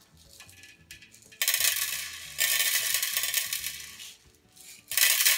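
Small shiny plastic beads for slime shaken out of a container into a bowl, rattling in three loud spells, the last starting about five seconds in.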